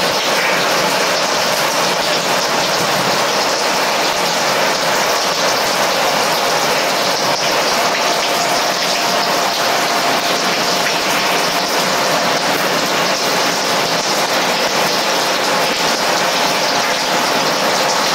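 Airbus A330's jet engines running steadily: an even rushing hiss with a faint steady whine through it.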